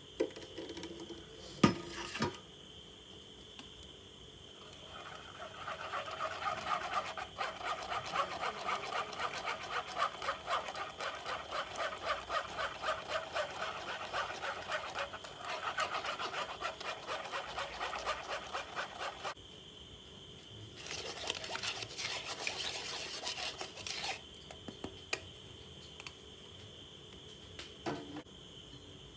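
Silicone spatula pressing strawberry purée through a fine metal sieve: repeated wet scraping strokes over about fifteen seconds, then a shorter spell of scraping after a brief pause. A few sharp knocks come near the start.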